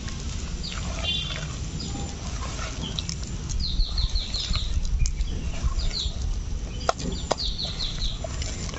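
Small birds chirping in two quick runs of short high notes, over a steady low rumble. Underneath is the sound of a hand kneading mashed banana and rice flour in a steel bowl, with a few sharp clicks near the end.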